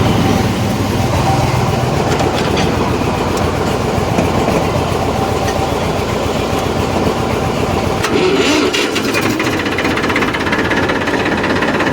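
An engine running steadily. Its low, throbbing part drops away abruptly about eight seconds in, leaving a lighter, higher running sound.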